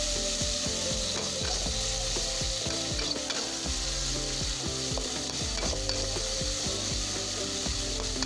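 Ground chili and shallot spice paste sizzling in a little hot oil in an aluminium wok, stirred steadily with a metal spatula that scrapes and clicks against the pan.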